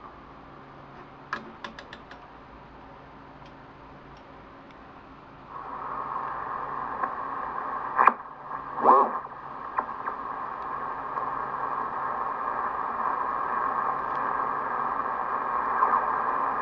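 Clicks from the Kenwood TS-830S transceiver's front-panel controls. About five and a half seconds in, the receiver comes up with a steady band of static hiss as it is tuned across the 11-metre band near 27 MHz, and a couple of louder knocks come partway through.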